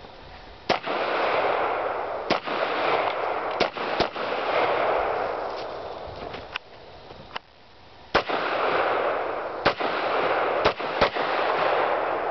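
A string of about ten gunshots at uneven spacing on a practical shooting course, some in quick pairs (two close together about four seconds in, and two more near the end), with a steady rushing noise between the shots.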